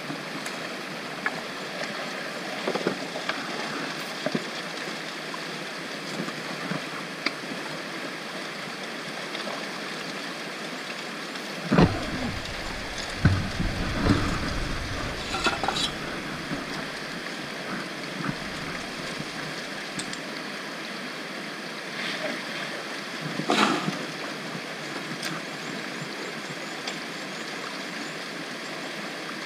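Shallow rocky creek running steadily over stones. Short knocks and sloshing from gravel and water being worked in plastic buckets, loudest about halfway through and again near the end.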